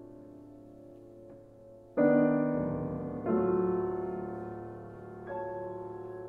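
Steinway grand piano playing slow, spacious chords: a held chord fading, then a loud chord struck about two seconds in, another just over a second later and a softer one near the end, each left ringing and dying away.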